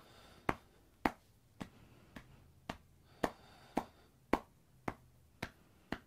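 A soft fist tapping steadily on the outer thigh, about two knocks a second, as self-massage of the IT (iliotibial) band.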